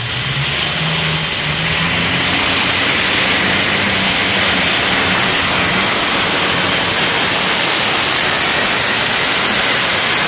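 Competition pulling tractor's engine running at full throttle as it drags the weight-transfer sled down the track. The loud, dense engine noise grows louder over the first few seconds as the tractor comes closer, then holds steady.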